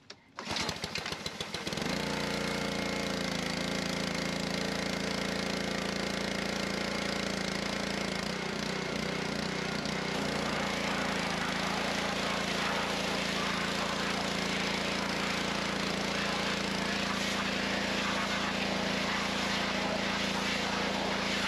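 Small-engine pressure washer starting: a quick run of firing pulses about half a second in, catching and settling into a steady run within about two seconds.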